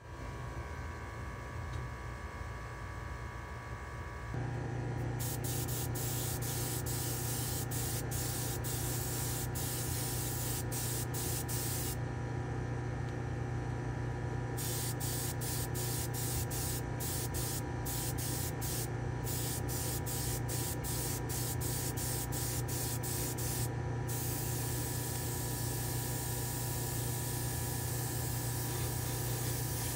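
Airbrush spraying paint onto a small diecast truck cab: a steady hiss that stops and starts over and over with the trigger, with a couple of longer pauses, then runs unbroken near the end. Under it a steady motor hum comes on about four seconds in.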